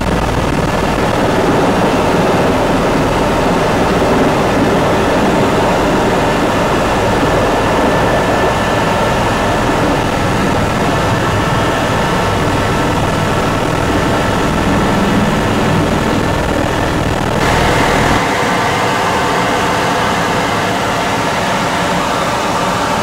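Helicopter engine and rotor noise, loud and steady. About three-quarters of the way through it changes abruptly: the deep rumble drops away and the higher hiss gets brighter.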